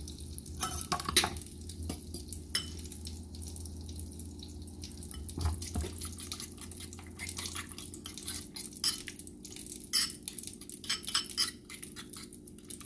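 A fork beating eggs with chopped vegetables in a bowl, clinking against the bowl's sides: a few scattered clinks at first, then quick, steady clinking from about halfway.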